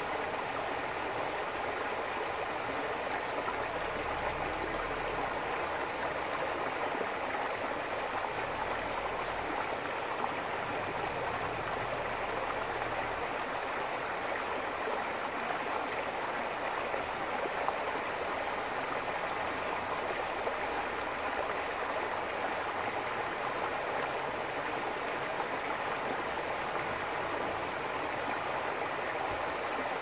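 Shallow, clear stream flowing over stones and pebbles, a steady rippling rush of water.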